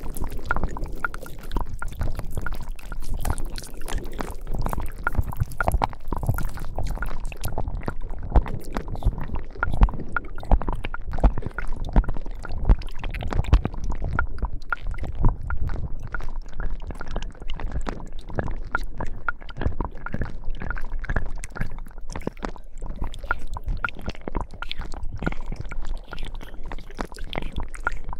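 Slime being squished and kneaded close to the microphone: a continuous run of wet squelches with many small irregular pops and clicks.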